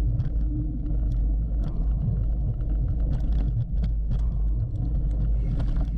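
Hardtail mountain bike ridden along a dirt race trail, picked up on a GoPro: a steady low rumble of wind and tyres on the mic with frequent short clicks and rattles from the bike over the ground.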